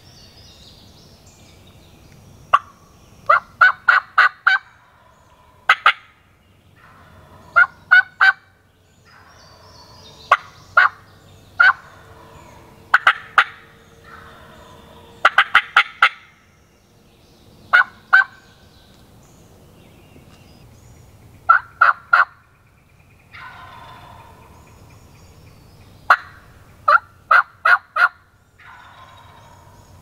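Wild turkey gobbler calling: about a dozen short bursts of sharp, rapidly repeated rattling notes, spread irregularly over the whole stretch.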